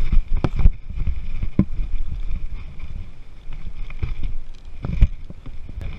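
Baitcasting fishing reel being cranked, heard as a low rumble of handling on the microphone with several sharp knocks, the loudest near the end.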